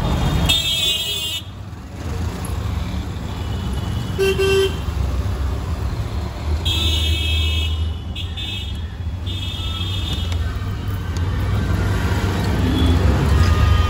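Street traffic with engines running steadily underneath and high-pitched vehicle horns honking. There is a honk about half a second in and a short one around four seconds. Three more come close together between about seven and ten seconds.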